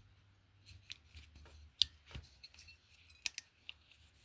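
Ozark Trail 12-in-1 multitool being folded up, its steel tools and pliers handles giving scattered sharp metal clicks and snaps. The loudest click comes nearly two seconds in, with a close pair a little over three seconds in.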